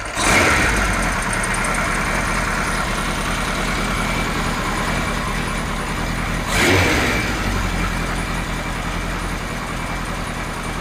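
Kawasaki Z1 900's air-cooled inline four-cylinder engine catching and settling into an idle, started warm without the choke. About six and a half seconds in, the throttle is blipped once: the revs rise and drop back to idle.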